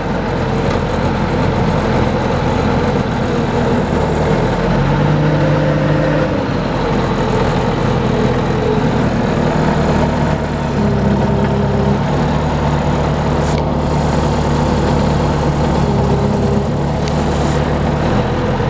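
Heavy machine engine running steadily, its pitch stepping up and down a few times as the throttle or load changes.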